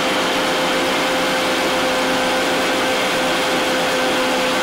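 Electric mixer-grinder running at one steady speed, blending a liquid mixture in its plastic jar: an even motor whir with a constant hum under it.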